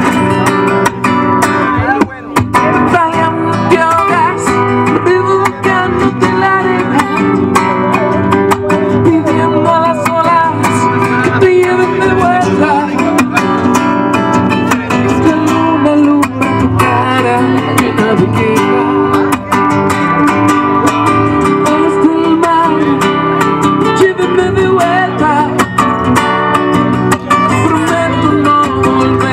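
Live acoustic music: an acoustic guitar strummed and plucked, with a voice singing along at times.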